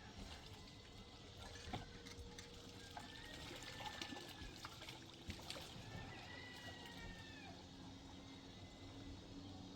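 Faint water pouring and trickling, with a few light knocks.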